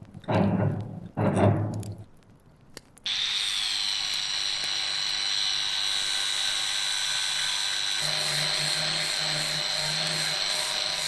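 Two brief swells of noise, then about three seconds in a power tool switches on and runs steadily with a high whine.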